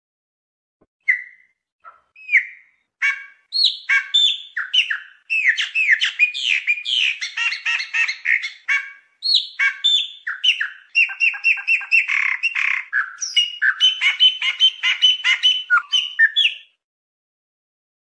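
Chopi blackbird (pássaro preto) singing a long, rapid song of varied whistled and chattering notes. The song starts about a second in and stops about a second before the end.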